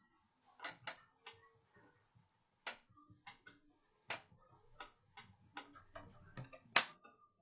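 A dozen or so faint, irregularly spaced clicks from someone working at a computer, the loudest near the end.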